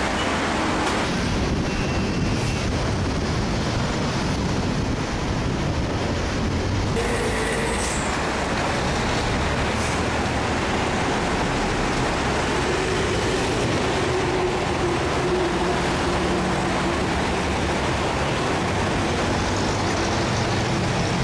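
Steady road traffic noise, an even rushing hum with faint engine tones passing now and then.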